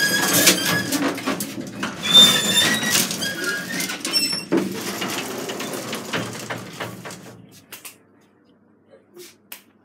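Collapsible steel lattice gate of an old Oakland passenger lift being slid open by hand. The folding metal bars rattle and clatter, with several short, high metal squeals over the first few seconds, and the noise dies away about eight seconds in.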